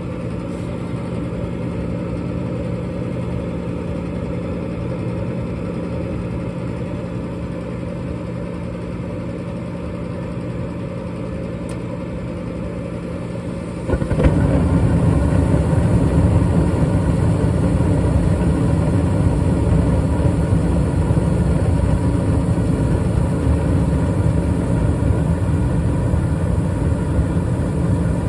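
Bryant gas furnace running with its burners lit: a steady hum under a broad rushing noise. About halfway through, the sound steps up louder and deeper, into a fuller rumble that then holds steady.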